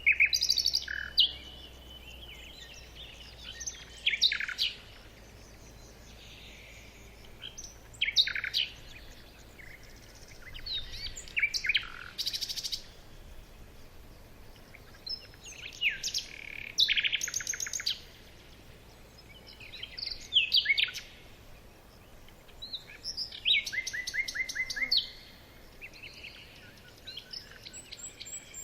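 A small bird singing: short phrases of high chirps, quick down-slurred notes and rapid trills, repeated every few seconds.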